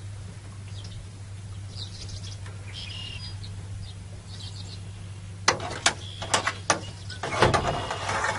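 Birds chirping faintly over a steady low hum; from about five and a half seconds in, a run of sharp clicks and knocks and then a louder scuffing clatter as a trotline is hauled hand over hand along the side of an aluminium jon boat.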